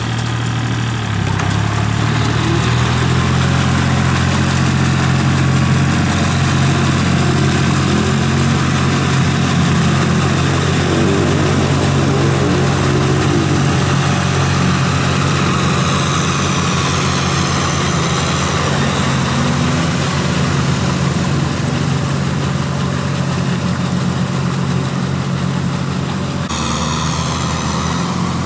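Small Kubota tractor's diesel engine running steadily under load as it pulls a levelling board through a flooded rice paddy on steel cage wheels. Its pitch shifts slightly about a second in and again near the end.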